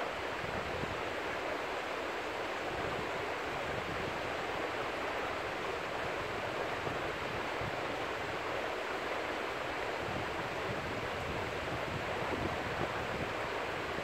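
River water flowing, a steady even rush.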